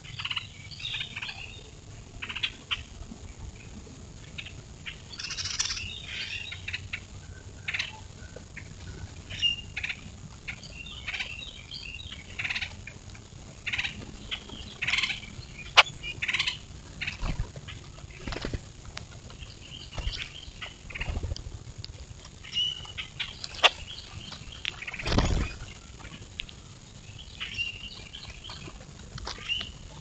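A flock of grackles feeding on the ground with many short, scattered calls and chips. Now and then wings flap loudly as birds take off, land and scuffle, with the longest flutter a few seconds before the end.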